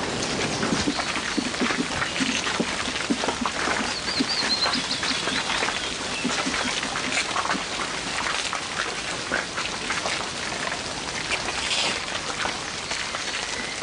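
Steady rain falling, a dense patter of many small drops striking surfaces.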